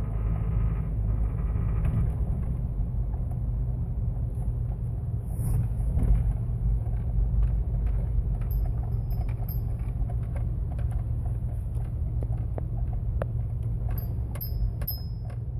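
Jeep Wrangler TJ's 4.0-litre straight-six running at low RPM with a steady low drone: the low-RPM buzzing and vibration that shows up only in Drive and Reverse and fades at higher RPM. Scattered light clicks sound over it.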